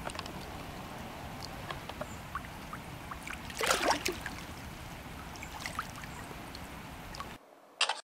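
Water at the lake edge where a carp lies in a landing net: a steady wash of water noise with scattered small ticks, and a louder splash lasting about half a second around three and a half seconds in. The sound cuts off shortly before the end.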